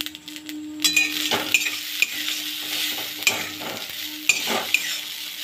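Chow mein noodles sizzling in a steel kadai while a metal spatula stirs and tosses them, striking and scraping the pan several times. The sizzle grows louder about a second in, over a steady low hum.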